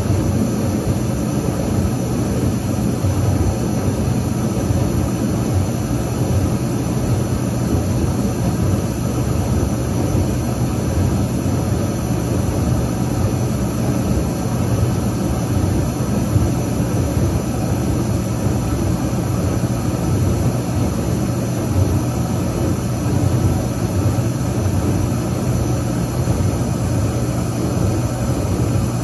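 1984 Whirlpool DU3003XL-0 dishwasher running steadily: a constant motor hum under an even rushing, churning noise, with no change in its sound.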